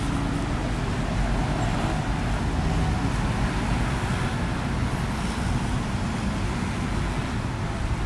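Steady road traffic noise from cars and motor scooters passing through a city intersection: a continuous low rumble with no single vehicle standing out.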